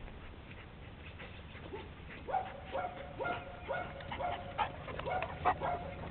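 Dog giving a quick run of short, high barks, two or three a second, starting about two seconds in.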